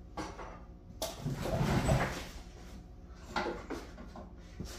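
Things being shifted around by hand: a long scraping slide lasting about a second, then a few short knocks.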